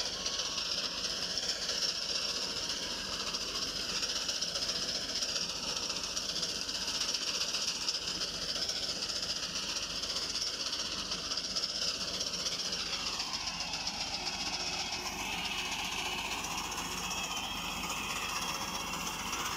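Massey Ferguson 240 tractor's three-cylinder diesel engine running under load while its front-mounted reaper cuts wheat, a steady clattering mechanical rattle. The engine note dips slightly about two-thirds of the way through.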